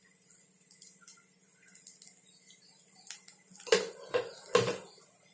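Mostly quiet with faint clinks, then near the end a metal spoon knocks three times in quick succession against the side of a metal kadai of rice.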